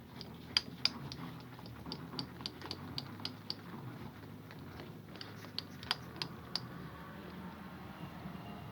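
Light clicks and taps of metal parts being handled and positioned on a lathe while an indicator setup is moved into place. There is a quick, irregular run of clicks in the first few seconds and a few more about six seconds in.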